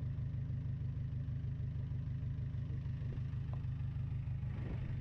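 A small fishing boat's engine running steadily, a low, evenly pulsing hum heard from on board.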